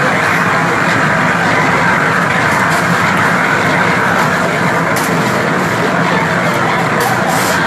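Building-site noise at a concrete pour: a steady, loud mechanical drone with the bustle of a large work crew and a few brief clinks of tools and pans.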